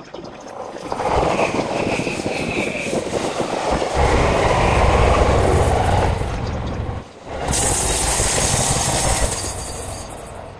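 Trains running on the tracks: a rumble and rail noise that swells and fades, breaking off abruptly about seven seconds in before another train is heard.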